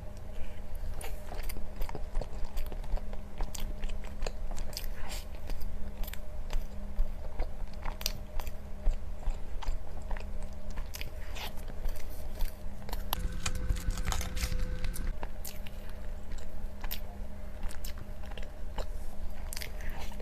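A person biting and chewing crunchy food close to the microphone, with frequent irregular sharp crunches over a steady low hum.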